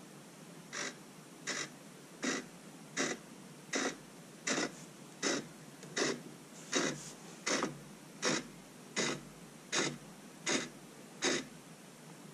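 Small hobby servo motors whirring in short, evenly spaced bursts, roughly every three-quarters of a second, as they drive the rotor and sliding lid. This is the boot-up servo activity after the Arduino is reset.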